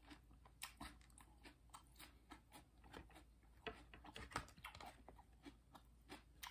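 Faint close-up chewing with soft crunching: a steady run of small mouth clicks and crunches, a little louder about four seconds in.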